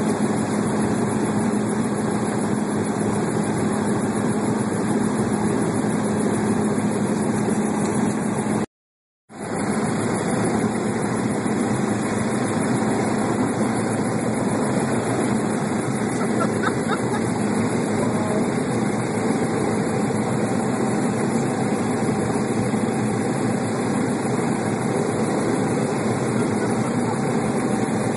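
Steady drone of a tour helicopter heard from inside the cabin. It cuts out completely for about half a second around nine seconds in.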